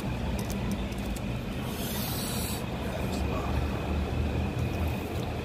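Steady low hum of a car running, heard inside the cabin, under light handling and eating noises: a few small clicks in the first second and a brief crackling rustle about two seconds in.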